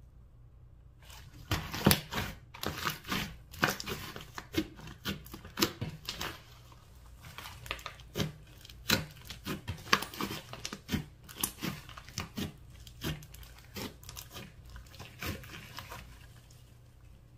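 Thick slime with small beads mixed in, kneaded, folded and pulled by hand, giving irregular sticky pops, crackles and squelches. The sounds start about a second in and die away near the end.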